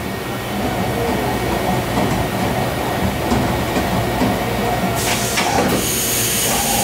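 Haas VF-4SS CNC vertical mill running while its side-mount tool changer carousel rotates through the tool pockets: a steady mechanical rumble and whir. About five seconds in, a higher hiss and a couple of sharp clicks join it.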